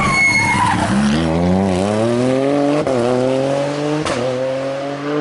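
Toyota rally car passing close, then its engine pulling hard away, the pitch climbing through the gears with an upshift roughly every second.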